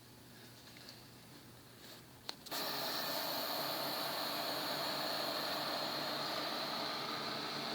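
Newly built desktop computer powering on: a click about two seconds in, then its cooling fans start abruptly and run as a loud, steady whir with a high whine.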